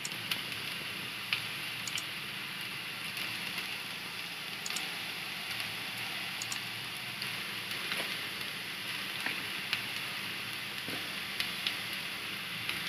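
Onion pakodi batter deep-frying in a kadai of hot oil: a steady sizzle with scattered sharp crackles and pops.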